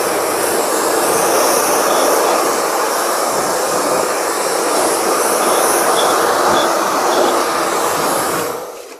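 Handheld hair dryer running steadily, blowing air into an open inkjet printer to clear out dust and debris. It is switched off and dies away near the end.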